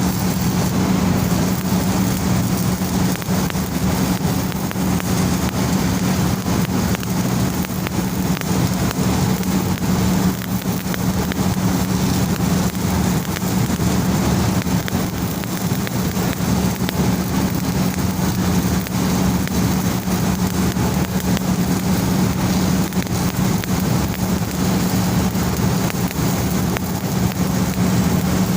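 Stick (SMAW) welding with a low-hydrogen electrode: the arc crackles and sizzles steadily without a break, over a constant low hum.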